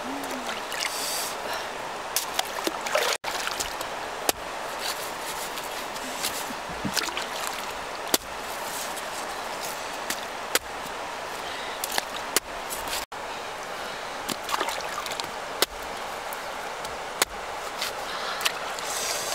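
A large knife cutting through a whole jackfruit, each cut a sharp click every second or two, over water trickling and sloshing around the cook as she works in the river.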